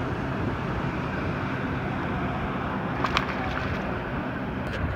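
Steady wind and water noise with distant motorboats running on the lake, and a brief sharp knock about three seconds in and another near the end.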